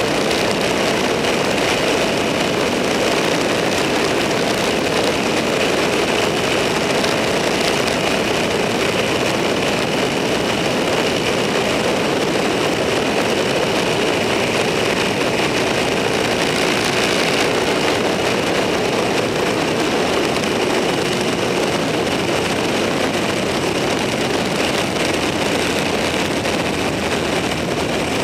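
A vehicle cruising at a steady speed, its engine running evenly under continuous road and wind noise.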